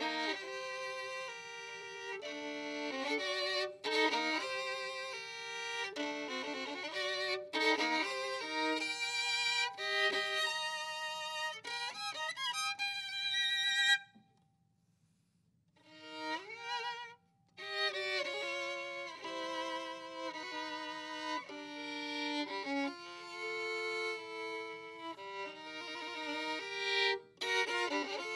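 Violin played solo-style, melodic notes with vibrato and some double stops; the playing breaks off for about two seconds in the middle, then resumes.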